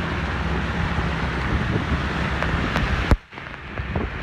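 Steady hiss of rain and wind on the road, with a motor vehicle's engine running close by. The sound cuts off abruptly with a click about three seconds in.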